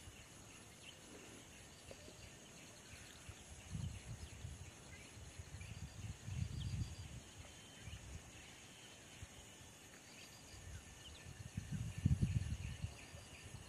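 Faint, steady chirring of insects from the riverbank vegetation, with low rumbles swelling up about four, six to seven, and twelve seconds in.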